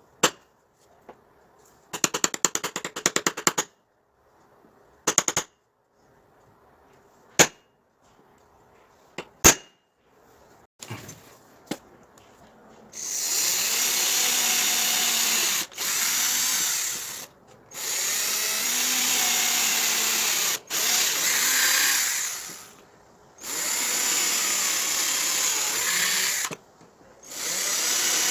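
A few separate knocks and a rapid run of clicks, then a power tool running in repeated bursts of a few seconds each, a steady high hissing whir that stops and restarts about six times.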